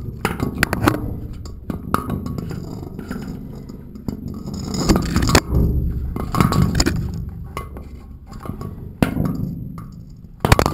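Scattered clicks, knocks and scraping of a camera hanging on a string down a well as it brushes against the stone wall, over a low rumble, with a louder scrape near the end.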